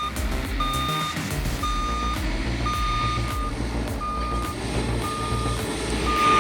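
A heavy vehicle's reversing alarm beeping steadily, about once a second with each beep half a second long, over the low rumble of its diesel engine.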